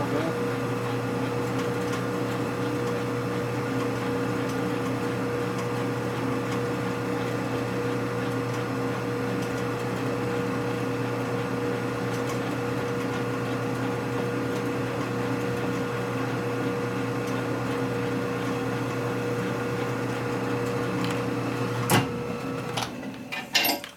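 Metal lathe running steadily, spinning a hone held in its 6-jaw chuck. Near the end a sharp click comes and the steady running breaks off.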